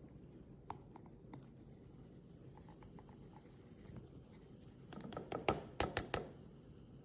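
Faint low hum with scattered light clicks and taps, a cluster of sharper clicks about five to six seconds in.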